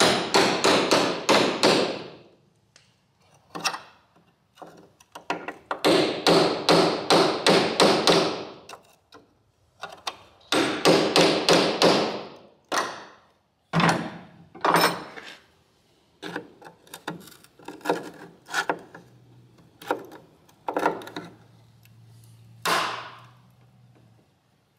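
A chisel driven into old weld and patch steel on a car's door hinge pillar: three bursts of rapid metallic strikes in the first half, then single sharp knocks a second or two apart.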